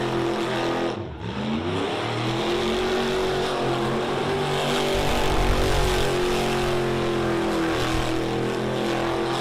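Ford Bronco's engine held at high revs through an all-wheel-drive burnout. About a second in the revs drop off briefly, then climb back up and stay high.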